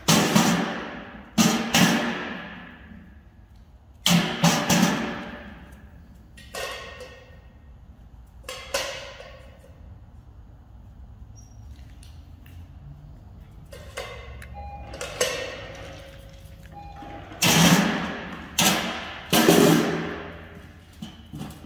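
A series of loud, sharp bangs at irregular intervals, each ringing out and dying away over a second or two, with several close together near the end.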